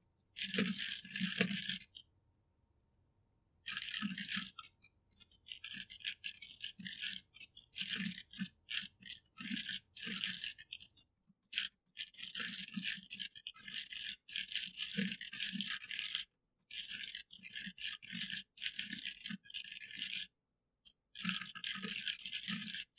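Typing on a computer keyboard: fast runs of key clicks broken by brief pauses.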